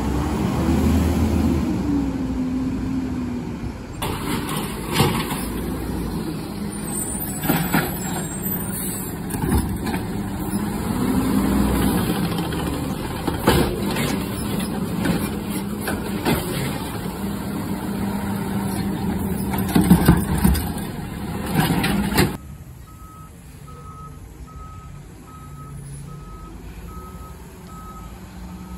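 Garbage truck's diesel engine revving up and down under load, with clanks and bangs from the trash and packer. Near the end it drops to a quieter stretch with a truck's reversing alarm beeping steadily.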